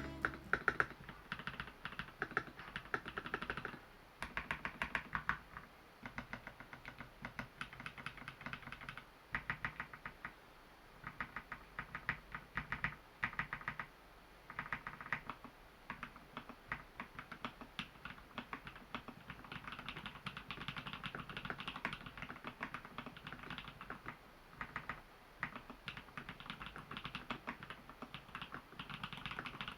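Typing on a custom mechanical keyboard in an XO v3 case with Holy Panda tactile switches, lubed with Krytox grease, filmed, and dampened with Thinsulate foam: quick runs of key presses in bursts with short pauses between them.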